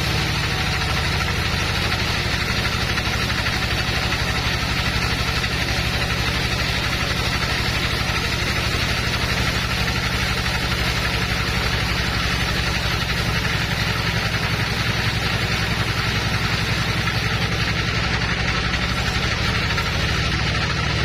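Bandsaw sawmill running steadily: an even engine-like drone with a hiss above it.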